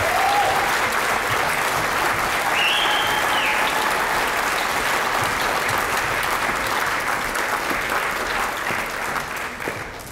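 Theater audience applauding steadily, the clapping thinning out near the end.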